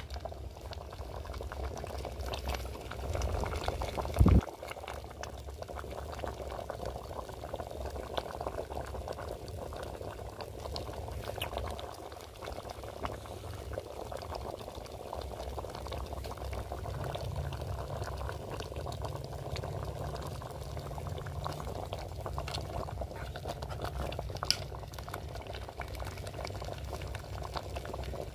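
Dal dhokli simmering in an aluminium pot, a steady crackly bubbling with a low rumble underneath. One loud knock about four seconds in.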